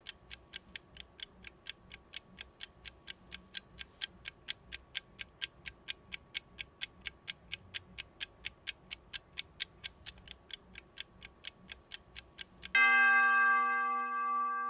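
A clock ticking fast and evenly, about four ticks a second. Near the end a single loud bell strikes and rings on, fading slowly.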